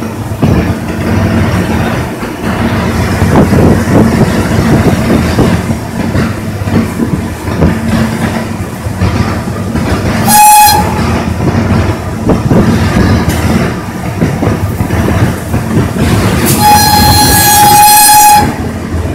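Running noise inside the cab of a moving WAG-7 electric locomotive: a steady rumble and clatter over the track. A short horn blast sounds about halfway through, and a longer one of nearly two seconds near the end.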